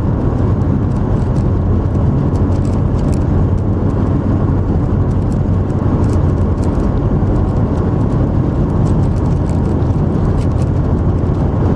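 Strong gusting wind buffeting the microphone: a loud, steady, low rumble.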